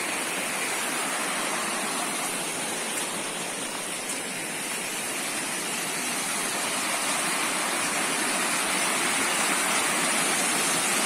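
Waterfall water rushing and splashing over rock ledges in a steady noise, growing slightly louder in the second half.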